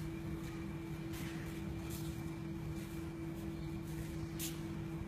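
Low room noise with a steady hum, broken by a few faint ticks.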